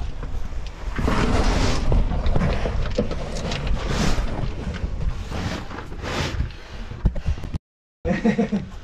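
Rustling and scraping of cavers crawling over rock and dragging a caving bag through a tight passage, with heavy rumbling handling noise on the microphone. The noise comes in surges every second or two.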